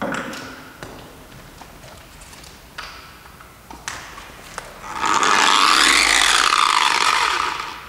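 An electric machine polisher with a foam pad runs in a short burst from about five seconds in, for about two and a half seconds, its pitch rising and then falling before it stops. Before it, a few light clicks and knocks.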